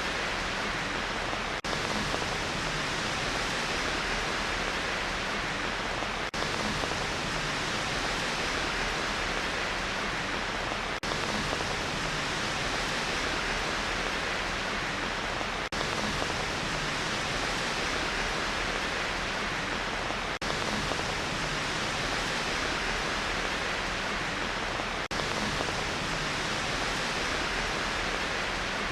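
Rain white-noise track: an even, steady hiss of rain, dipping briefly about every five seconds where the short loop repeats.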